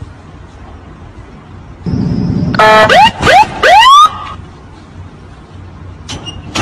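A loud electronic alarm-like sound about two and a half seconds in: a short steady horn-like tone, then three quick rising whoops, over a low background hum.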